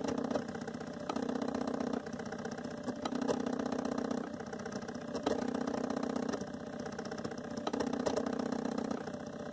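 NEJE laser engraver's stepper motors running as the laser head works across a wooden disc, a steady mechanical whir and buzz that shifts in pitch about once a second as each line is carved.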